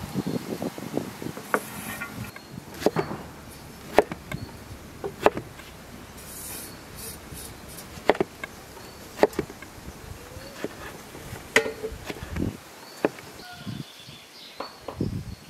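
Kitchen knife slicing tomatoes on a wooden cutting board: sharp, irregular knocks of the blade on the board, roughly a second apart.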